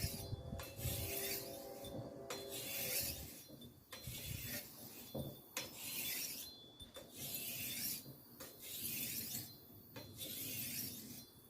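Machete blade being drawn by hand across a coarse-grit sharpening stone lubricated with oil: a regular series of rasping strokes, about one every second and a half, putting an edge back on the dull blade.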